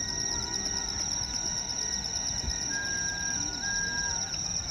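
Insects trilling steadily: a continuous, high, finely pulsed chirring. Under it are a few faint thin tones and a low rumble.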